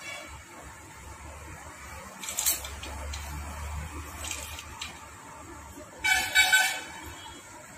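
A vehicle horn honks once, loud and brief, about six seconds in. Earlier there is a short clatter and a low engine rumble in the background.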